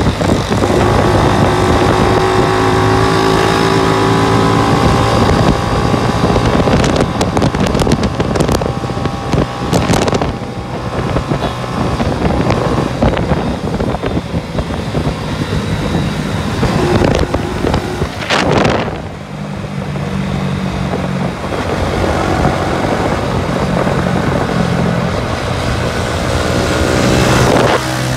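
Motorcycle engine running while riding along, its pitch shifting up and down with the throttle and rising near the end, with wind on the microphone.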